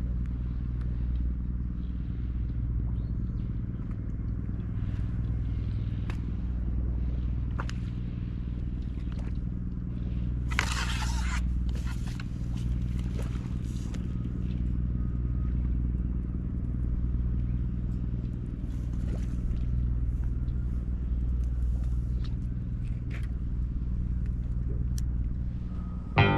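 A steady low hum of evenly spaced deep tones, with scattered small clicks and a brief hissing rush about ten seconds in.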